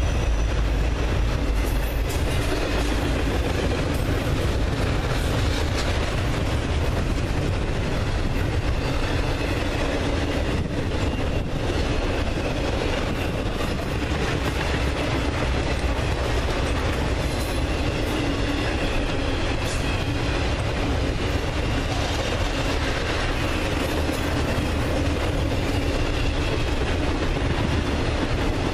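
Intermodal freight train's double-stack container cars and trailer flatcars rolling past close by: steady, unbroken noise of steel wheels running on the rails.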